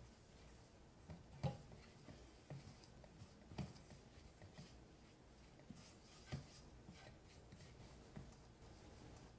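Faint rustling of flour and egg being mixed by hand in a stainless steel mixing bowl, with a few soft, irregular knocks against the bowl.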